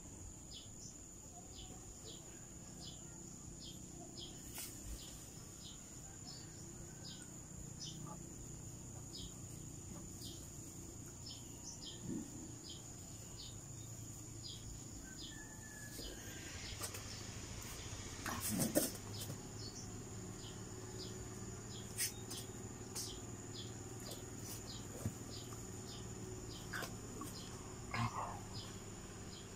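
Quiet ambience: a steady high-pitched buzz and a faint, short chirp repeating about one and a half times a second, over a low hum. A few soft knocks and rustles come through, the loudest about two-thirds of the way in.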